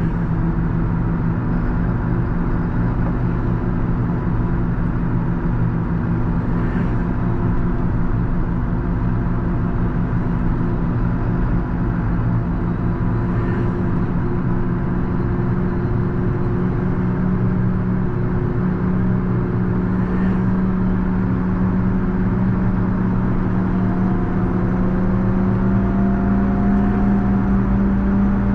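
JCB Fastrac 4220 tractor's six-cylinder diesel engine running steadily under load while its front plow pushes snow, the engine note rising slightly near the end.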